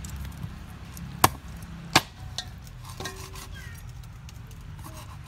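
A knife knocking sharply on a wooden chopping board, twice loudly about a second in and a little under a second apart, with a few fainter taps around them.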